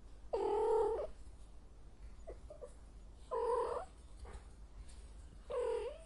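Female cat in heat yowling: three separate calls, each under a second long, a couple of seconds apart.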